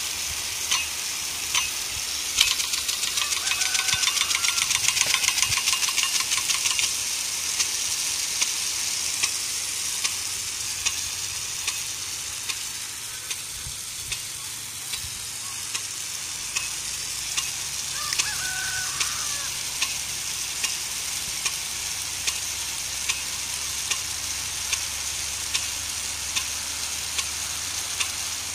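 Impact-type rain gun sprinkler spraying: a steady loud hiss of the water jet, with the swing arm knocking against the stream about once a second; a few seconds in, a quick run of closely spaced knocks.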